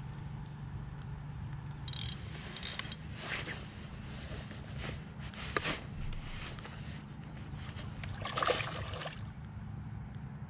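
A hooked barbel splashing at the water's surface close in, in several short bursts, the biggest about eight and a half seconds in. A steady low rumble of wind on the microphone runs underneath.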